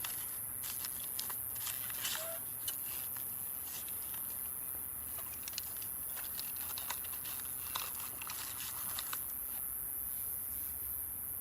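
Wood fire crackling, with irregular sharp pops and snaps that thin out near the end.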